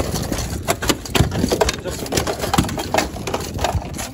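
A large bluefish thrashing in a landing net on a boat's deck, its body and tail slapping the deck in a rapid, irregular run of knocks and thuds, over a steady low rumble.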